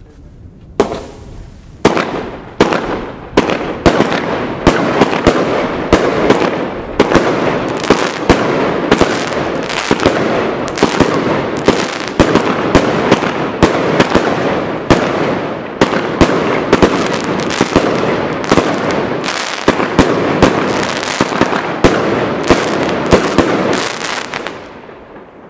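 A firework battery firing a fast run of aerial shots: a few separate bangs at first, then a dense, continuous volley of bangs over heavy crackling from silver crackling stars. It dies away about a second before the end.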